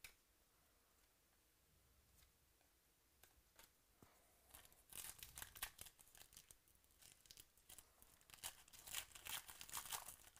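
Foil wrapper of a 2017 Panini Chronicles baseball card pack being torn open by hand: crinkling and tearing in two spells, about four and a half seconds in and again near the end.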